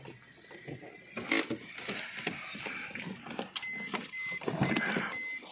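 Footsteps crunching and rustling through dry grass and straw, an irregular run of crackles that grows louder about a second in.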